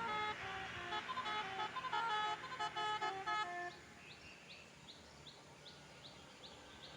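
Basuri 'telolet' musical bus horn playing a quick melody of short stepped notes, cutting off about three and a half seconds in. After it, a faint high chirp repeats about three times a second.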